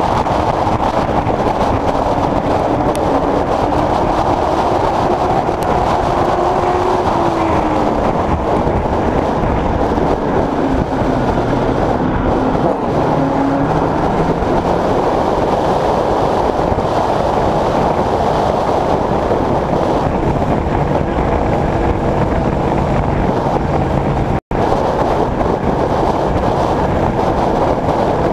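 Late Model Stock race car's V8 engine running on track, heard from on board over heavy wind and road noise. Its pitch rises and falls with the throttle in the first half, then holds steadier and lower. The sound cuts out for a split second near the end.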